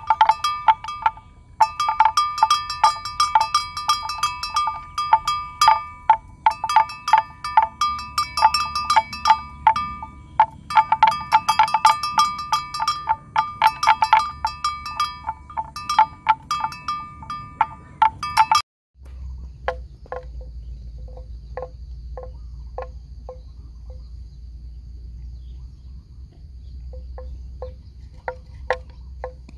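Bells clanking in quick, irregular strikes, as from neck bells on a herd of water buffalo. About two-thirds of the way through, the clanking cuts off abruptly, leaving a steady low rumble, a faint high insect drone and soft irregular knocks.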